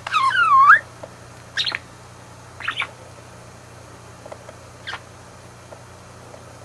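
Budgerigar calling: a loud squawk that swoops down and back up in pitch at the start, followed by a few short, sharp chirps about a second apart.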